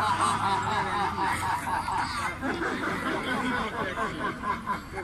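A group of people laughing together in a laughter yoga exercise: many voices chuckling and giggling at once, overlapping without a break.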